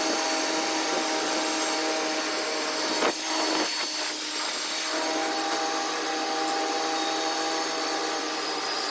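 ShopSabre CNC plasma table's equipment switched on and running: a steady electric whir with a hiss that starts abruptly, and a few brief knocks about three to four seconds in.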